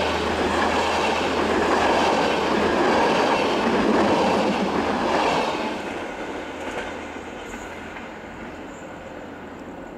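Passenger coaches of a locomotive-hauled train rolling past close by, steady wheel-and-rail noise. It fades away from about five and a half seconds in as the end of the train passes.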